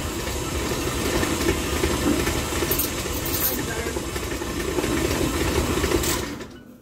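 Electric kitchen mixer running steadily while beating a mixture, then switched off about six seconds in.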